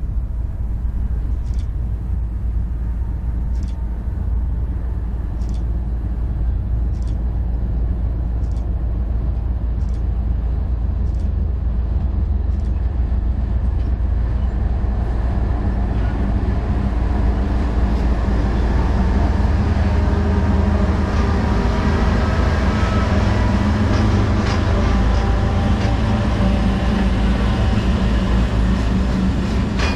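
Freight train on the BNSF Columbia River Subdivision, a steady low diesel locomotive rumble with rolling wheel-on-rail noise that grows louder about halfway through.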